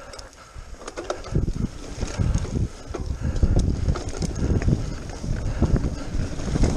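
Wind rumbling on the microphone of a camera riding on a mountain bike as it rolls along a wet, muddy dirt trail, stronger from about a second in, with the bike's tyres and frame rattling over bumps.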